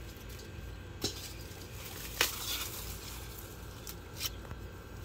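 Kitchenware clinking: three short sharp clinks, about one, two and four seconds in, the middle one the loudest, over a low steady hum.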